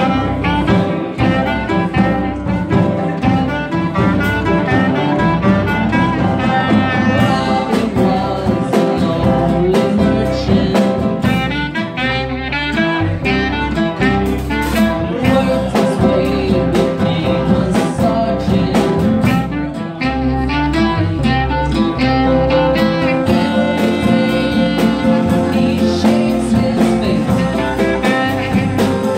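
Small live band playing an instrumental passage: a clarinet carries the melody over guitar, electric bass and drums.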